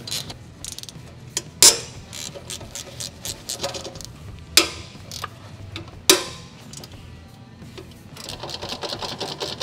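Hand ratchet with a long extension clicking as the rusty exhaust downpipe flange nuts are worked loose, with three sharp cracks along the way. A fast run of ratchet clicks comes near the end as a nut spins off.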